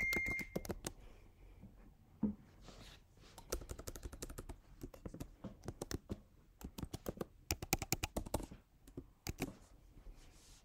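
Typing on a computer keyboard: bursts of rapid key clicks with short pauses between them. A brief high beep sounds right at the start.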